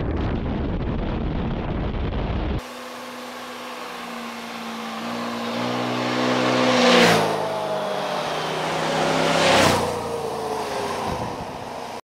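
Wind buffeting the microphone of a moving scooter, cut off abruptly after about two and a half seconds. Then two motor scooters ride past one after the other, each engine note growing louder on the approach and dropping in pitch as it goes by, about seven and ten seconds in.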